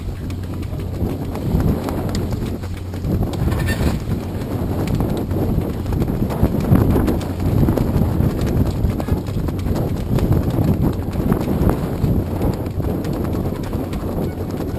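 Wind rumbling and buffeting on a GoPro camera's microphone, with many light irregular knocks and a low steady hum underneath.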